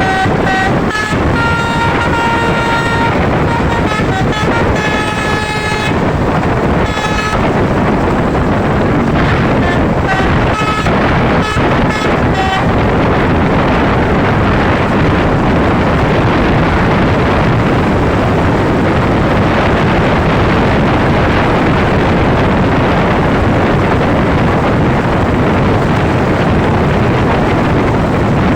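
Basuri telolet bus horn playing a tune of changing notes for about the first seven seconds, then a few short toots until about twelve seconds in. After that only the steady rushing road noise of the moving bus remains.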